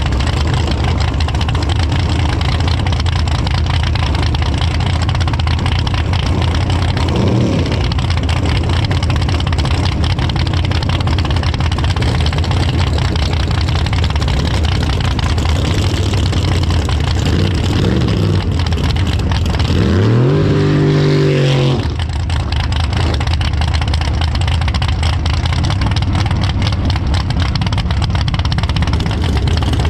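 Drag car's V8 engine idling loudly, with a couple of short throttle blips. About twenty seconds in it revs up in pitch, holds for a second or two, then drops back to idle.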